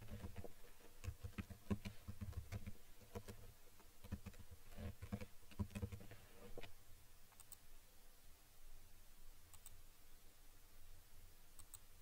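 Computer keyboard typing, a quick run of key clicks about six seconds long. After it come a few sharp single clicks.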